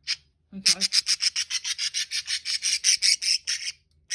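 Pet budgerigar chattering: a fast run of scratchy high notes, about eight a second, lasting about three seconds and stopping shortly before the end.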